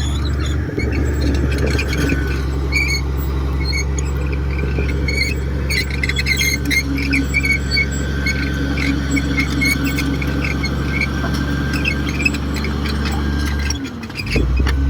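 Komatsu D58 bulldozer's diesel engine running steadily under work, with a run of short high squeals and squeaks over it. The engine note dips briefly near the end, then picks up again.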